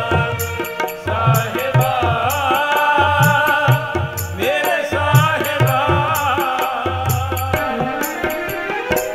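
Sikh Gurbani kirtan recorded live: a man's ornamented singing over harmonium, with tabla keeping a repeating beat.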